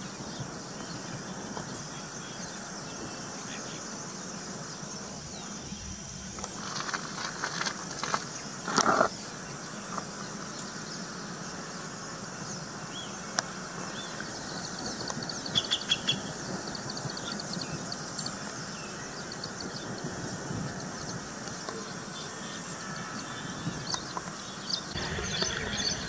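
Woodland ambience: a steady background hiss with faint high, even tones, a few short bird chirps around the middle, and a short burst of louder rustling and knocks about seven to nine seconds in.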